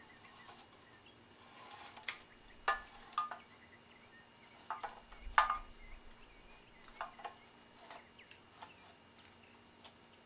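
Scattered light metallic clicks and clinks from a small engine's recoil starter housing and reel being handled and turned as a new pull cord is wound in. The loudest clink comes about halfway through.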